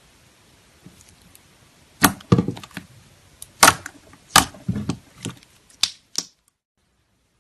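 Metallic slime being pressed and poked, giving a string of sharp, crisp clicking pops, about nine in four seconds, before the sound cuts off.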